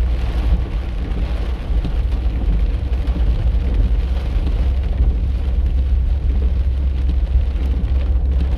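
Car cabin noise while driving on a rain-soaked street: a steady low rumble of the car, with the hiss of tyres on wet pavement and rain on the car.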